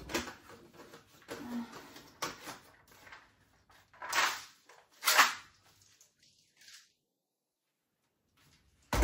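A few short knocks and clatters of kitchen containers being handled, with the two loudest about four and five seconds in.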